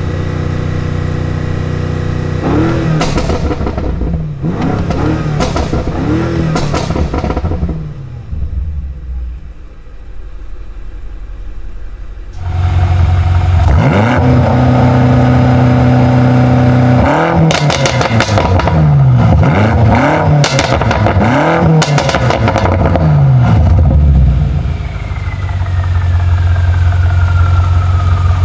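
BMW M5 Competition's twin-turbo V8 revved repeatedly in Sport Plus mode: two sets of quick rev blips, each rising and falling, with crackles and pops from the exhaust on the overrun. It then settles to a steady idle near the end, with a faint falling whistle.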